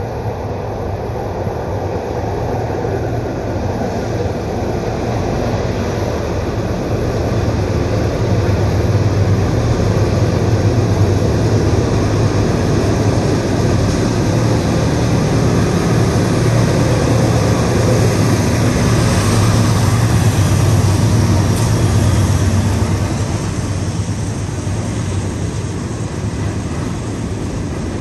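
Providence & Worcester diesel freight locomotives approaching and passing, their low engine rumble growing louder to a peak about twenty seconds in. The rumble then eases as the loaded stone train's cars begin rolling by.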